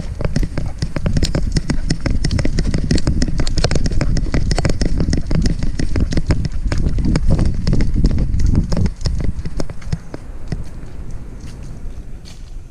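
Handling noise from a camera strapped to a moving dog's head: a dense run of rapid rattling knocks over a low rumble as the dog trots along a concrete path, easing off after about nine seconds when it stops to sniff.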